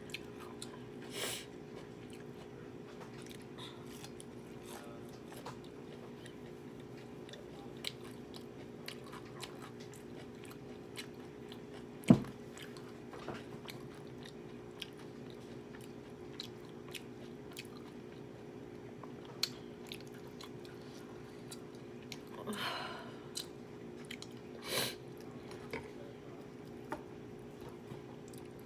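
A person chewing and biting food close to the microphone, with scattered small clicks and a few short noisy bursts. One sharp knock about twelve seconds in is the loudest sound, and a steady low hum runs underneath.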